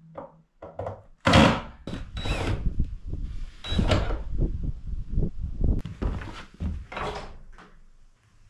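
Cordless drill/driver driving screws into the wooden door and frame in short bursts, mixed with knocks and clatter of wood.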